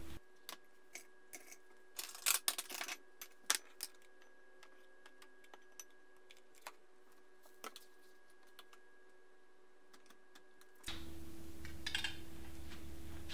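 Light clicks and clinks of a utensil against dishes and a food container as a meal is served into a bowl: a quick cluster about two seconds in, then single ticks every second or so, over a faint steady hum.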